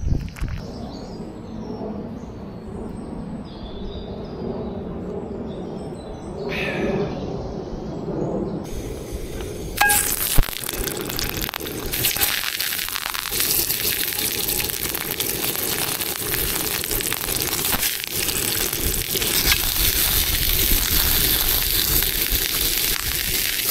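Sausages sizzling in a hot cast-iron skillet. The sizzle starts suddenly about ten seconds in as they go into the pan, with a sharp knock just after, and carries on steadily, growing a little louder.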